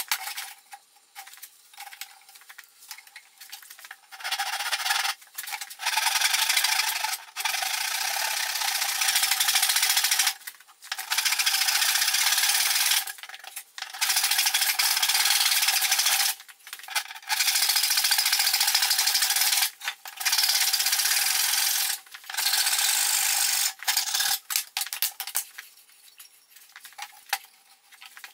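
Handsaw cutting through a 2x4. The strokes run together in stretches of two to three seconds with short breaks between them, after a few light knocks of handling the wood at the start.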